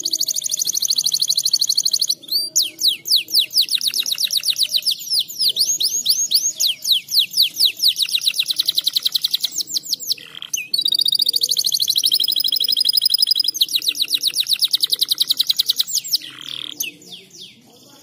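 Domestic canary in breeding condition singing a loud song of long, fast rolling trills. Brief breaks come about 2 and 10 seconds in, and the song trails off into softer notes near the end.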